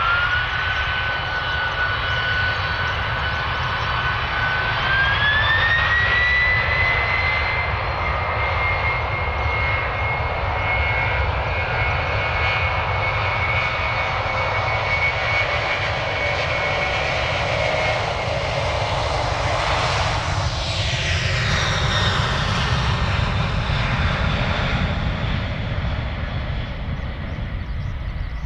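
Boeing 767-300's twin jet engines at takeoff power during the takeoff roll. A high whine rises and steps up about five seconds in, then holds steady over a loud rumble. About twenty seconds in the sound sweeps and phases as the jet passes, then fades as it accelerates away for liftoff.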